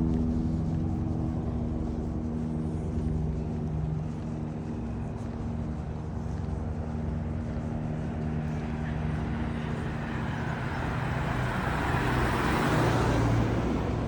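A motor vehicle's engine running steadily with a low hum, and another vehicle's road noise building, passing close near the end and fading.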